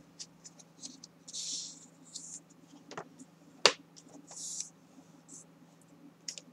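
Bone folder rubbed along a strip of kraft cardstock to crease the fold: a few short scraping strokes, with two sharp taps around the middle.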